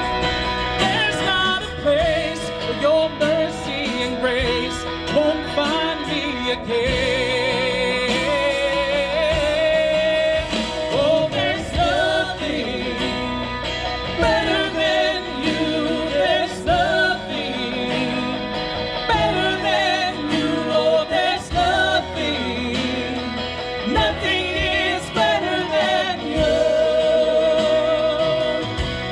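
Worship band music with a singer holding long notes with vibrato and vocal runs, without clear words.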